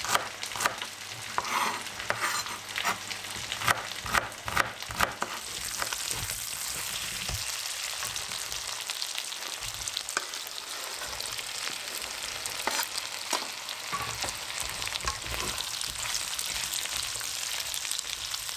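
Raw diced potato and onion frying in a pan: a run of knocks and clatters from the pan and utensil in the first five seconds or so, then a steady sizzle.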